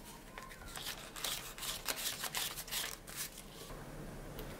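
Yen banknotes being counted by hand: a quick run of crisp paper flicks and rustles that dies down after about three seconds.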